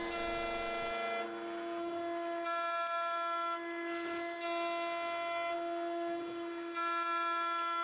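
Small CNC milling machine cutting a rectangular metal block: a steady motor whine with a higher whine that comes and goes about every second as the end mill traverses across the block.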